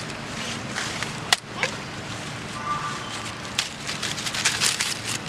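Dry leaf litter crackling and rustling, with one sharp crack about a second in and a quick run of crackles near the end.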